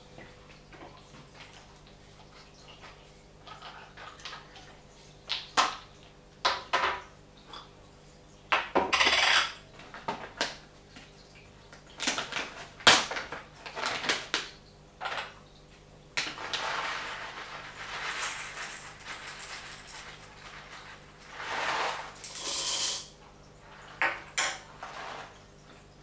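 Scattered clicks and clinks as parts of a Hario mini hand grinder, its crank handle among them, and a plastic measuring scoop are handled and set down on a table. Several stretches of rustling as a coffee bean bag is picked up and opened.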